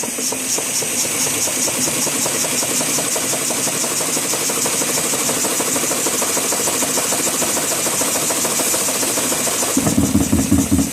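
Roberts air compressor running free cycle (unloaded), a steady hiss with fast, even pulsing. Near the end it loads again and its heavier, slower pumping beat comes back.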